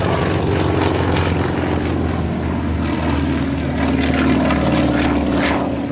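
Single-engine propeller aerobatic plane manoeuvring overhead, its engine and propeller droning steadily. The note rises a little about halfway through.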